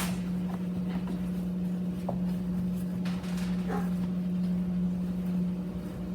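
Kitchen tap running as a plastic fruit container is rinsed under it, with a steady low hum and a few light knocks of the container.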